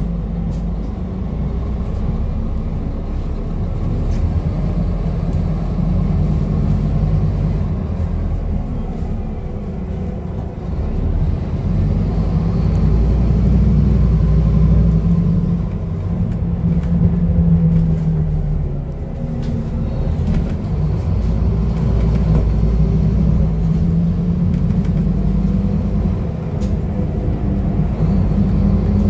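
Scania N230UD double-decker bus heard from the upper deck, its five-cylinder diesel engine and road noise as it pulls away from a stop and drives along, the engine note rising and falling with the gear changes and speed.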